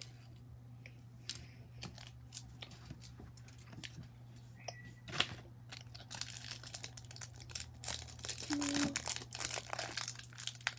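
Plastic candy wrapper being torn open and crinkled: scattered crackles at first, then dense crinkling from about six seconds in.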